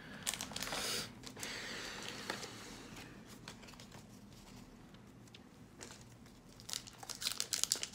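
Pokémon trading cards handled and set down on a play mat: a papery rustle and slide in the first second, then faint handling noise. Light crinkling and small clicks come in near the end.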